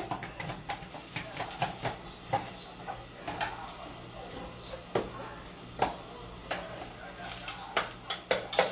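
Plastic food-processor blade and bowl being pushed and twisted together through a bowl of cooked chickpeas: scattered plastic clicks and knocks with the chickpeas shifting and rattling. The blade won't seat fully because the chickpeas are in the way.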